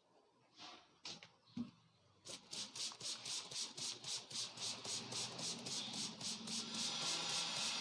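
A few scattered clicks, then from about two seconds in a rapid, even run of hand slaps or taps of a head massage, roughly four to five a second.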